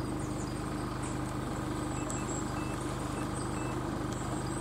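A vehicle engine idling steadily, with several faint short high beeps a little after two seconds in.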